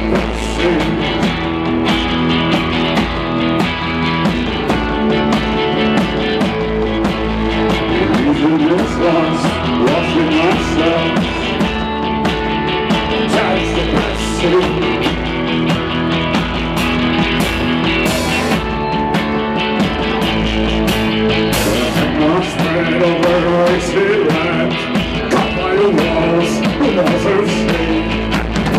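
Live rock band playing: a male singer's vocals over electric guitars and bass guitar, with a steady beat.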